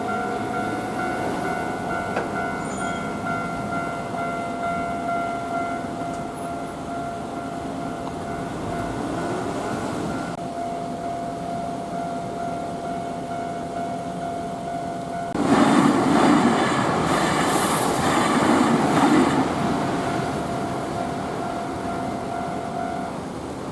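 Japanese level-crossing warning bell ringing steadily. About fifteen seconds in, a Nankai 8000 series electric train passes loudly for about five seconds. The bell keeps ringing after the train and stops near the end.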